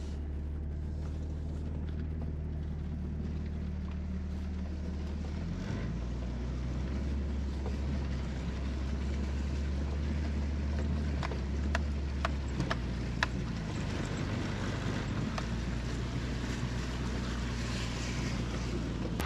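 Jeep Cherokee XJ engine running at low speed as it fords a shallow river, water sloshing around the wheels. The engine note shifts about six seconds in, and a few sharp knocks come a little past halfway.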